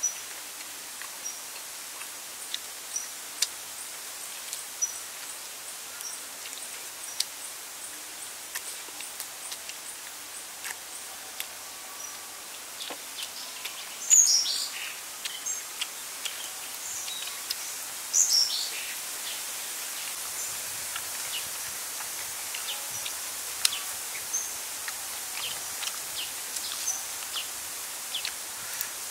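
Forest ambience with birds calling over a steady high hiss: a short high chirp repeated about once a second at first, then two louder falling calls around the middle, with small clicks scattered throughout.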